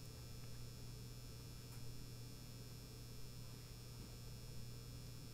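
Faint, steady low mains hum picked up on the recording, with nothing else sounding.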